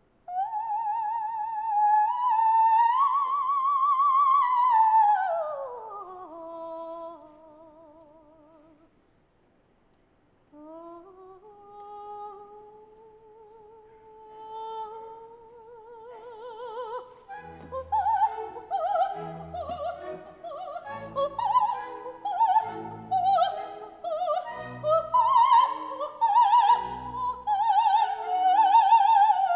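Operatic soprano singing with orchestra. She holds a high note with wide vibrato, then slides down in a falling run. After a short pause, the orchestra enters with held notes under her voice, and about halfway through a steady beat of low orchestral notes backs a string of short, ornamented vocal phrases.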